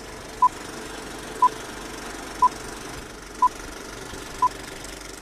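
Film-leader countdown beeps: five short beeps of one pitch, one a second, marking off the numbers, over a steady hiss and hum.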